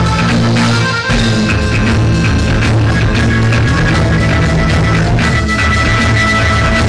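Live rock band playing loud and continuous, with electric guitars and a drum kit.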